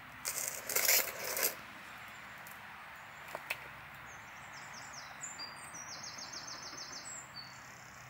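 A brief rustling scrape in the first second and a half, from hands working the monstera's leaves and soil in its plastic pot, with a single click a little later. From about halfway on, a small bird sings quick repeated high notes over a steady outdoor hiss.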